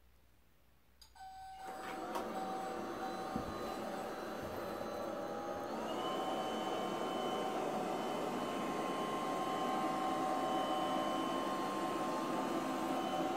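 Haier SWR Pathfinder robot vacuum starting up about a second in, then running steadily: a motor whine with several held tones, which rises a little in pitch about six seconds in.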